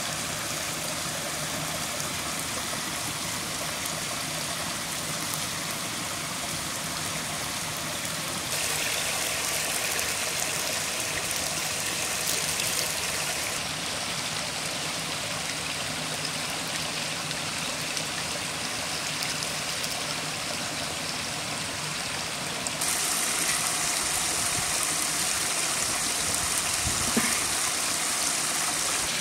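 A small waterfall and stream running over rocks, a steady rush of water whose loudness and tone change abruptly a few times. A brief knock near the end.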